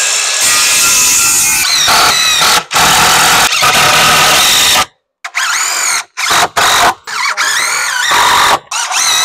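Cordless drill driving screws into new wooden step treads, in several short runs with brief stops between, the motor whine rising and falling in pitch as each screw goes in.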